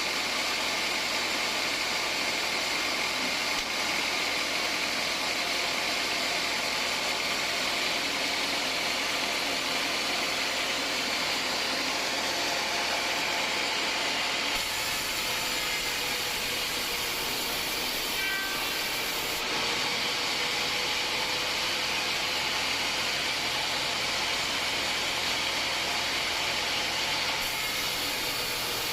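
Band sawmill running and cutting through hard acacia wood: a steady, unbroken rushing saw noise over the machine's motor.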